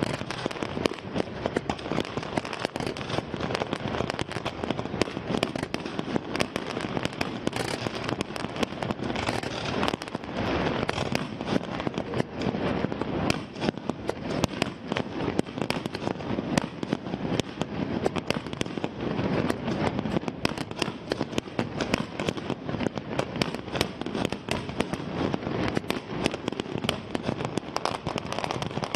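Fireworks display: a dense, unbroken barrage of shell bursts, sharp bangs and crackling going off many times a second.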